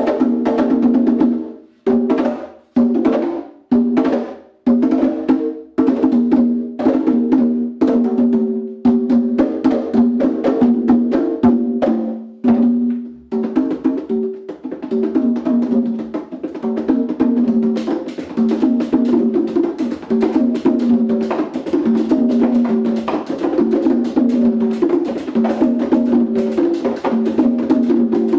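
Three congas played by hand together, the open strokes ringing with clear pitch. The first half has separate strokes with short pauses between them. About halfway through, the drums settle into a steady, dense interlocking groove.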